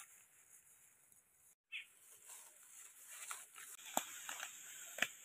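Footsteps crunching through dry bamboo leaf litter, faint rustling with two sharp crackles about four and five seconds in.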